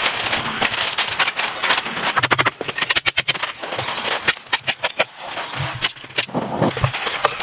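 A rapid, irregular run of sharp knocks and clicks, densest around the middle, over a steady hiss.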